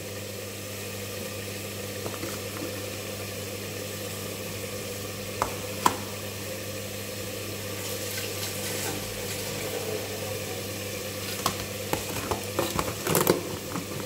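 Spice masala sizzling steadily in a covered pot on a gas burner, with a few sharp pops and clicks, two about halfway and a cluster near the end.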